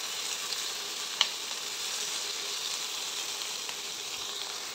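Diced paneer and vegetables sizzling in ghee in a kadhai as they are stirred with a spatula, with one short sharp click about a second in.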